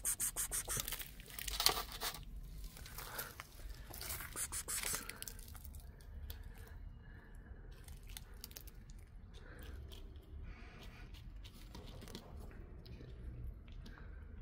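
Crinkling and tearing sounds, dense and rapid, for about the first five seconds, then quieter scattered clicks and rustles.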